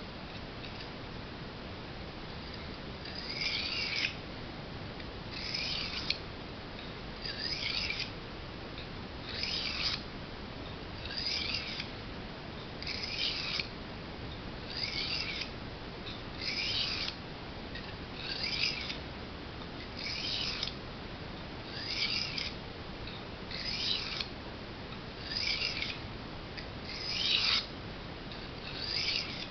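Knife blade drawn across a whetstone in about fifteen regular sharpening strokes, roughly one every two seconds, each a short high scrape, beginning about three seconds in.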